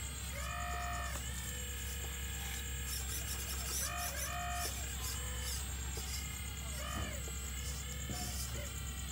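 Radio-controlled excavator's electric drive motors whining in several short spells, each rising in pitch, holding and falling away as the boom and bucket move, over a steady low hum.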